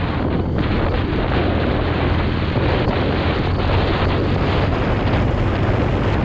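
Motorcycle riding at speed: a steady low engine hum under loud wind rush on the microphone.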